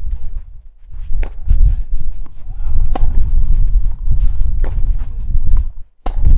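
Tennis ball struck back and forth by rackets in a baseline rally on clay: sharp pops about every one and a half to two seconds, over a low steady rumble.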